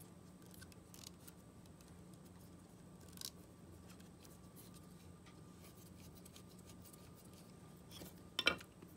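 Quiet hand handling of small parts at a work table: a light tap about three seconds in, then a sharper couple of clicks near the end as something small is set down on the tabletop.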